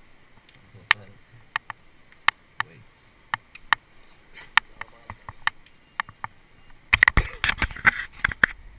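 Climbing gear being handled: scattered sharp clicks and clinks of carabiners and rope, about one or two a second, turning into a dense clatter and rustle about seven seconds in.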